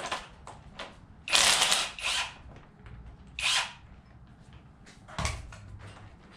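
Tool work on an engine being torn down: three short, loud, rasping bursts in the first four seconds, small clicks and clinks between them, then a single knock about five seconds in.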